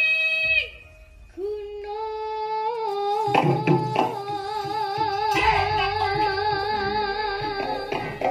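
A young Javanese sinden (female gamelan singer) sings through a microphone. A held note breaks off about half a second in, and after a brief pause she starts a new long note with a wavering vibrato. Drum strikes come in about three seconds in and punctuate the note.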